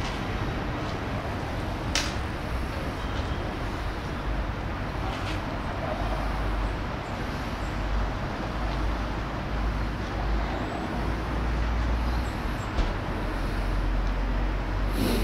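Low-floor tram moving slowly through a street stop: a steady low rumble under general traffic noise. A sharp click about two seconds in, and another near the end.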